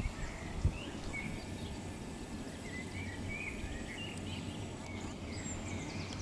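Small birds singing outdoors: scattered short chirps throughout and a quick high trill near the end, over a low rumble of wind on the microphone.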